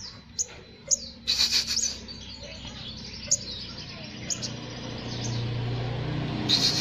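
Small sunbird singing in short, sharp high chirps, with a quick dense trill a little over a second in. A low hum swells in the background through the second half.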